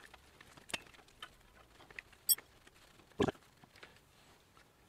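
Light, scattered clicks and ticks of a hand tool and metal parts as a bicycle's handlebar stem bolts are loosened, with a sharper knock a little after three seconds in.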